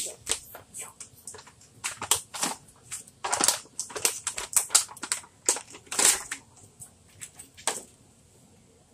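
Hands crushing and squeezing a crunchy play material, giving irregular sharp crackles and crunches. These are busiest a few seconds in and die away about a second before the end.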